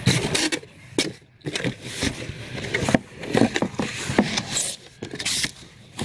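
Cardboard box flaps and crumpled paper packing being handled: irregular scraping, rustling and crackling as the box is opened and the paper is pushed aside.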